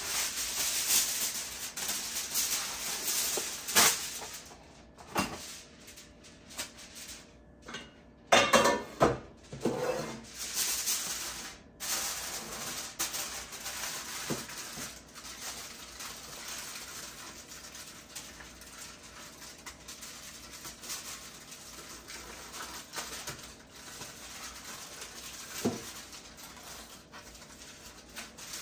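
Aluminum foil being pulled off the roll, torn and crinkled as it is pressed into round metal cake pans, with light clanks of the pans. The loudest crackles and clanks come about eight seconds in, and quieter crinkling follows.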